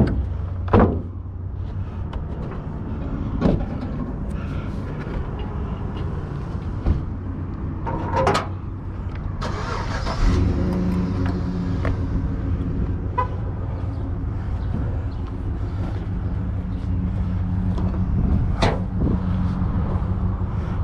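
A car running with a steady low engine hum, with a few sharp knocks or thumps over it.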